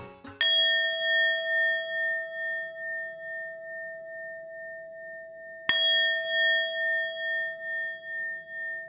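A metal bell struck twice, about five seconds apart. Each strike rings on long with a slow, pulsing waver.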